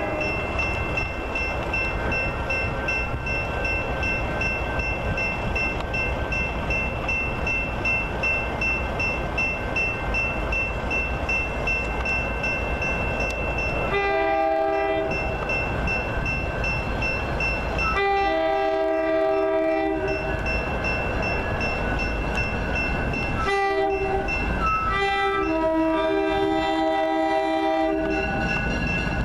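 Grade-crossing bell ringing rapidly and steadily while an approaching commuter train sounds its horn in the long, long, short, long grade-crossing signal; the last blast is held for about three seconds.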